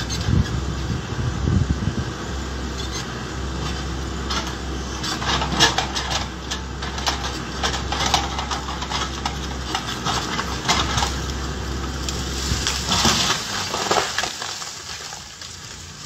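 Backhoe loader engine running steadily under load while it pushes over a tree, with repeated cracking and snapping as the trunk and roots give way. A louder burst of cracking near the end, as the tree comes down onto the machine, after which the engine hum stops.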